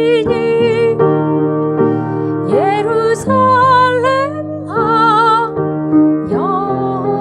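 A woman singing a slow Korean worship song, holding long notes with vibrato over sustained keyboard chords.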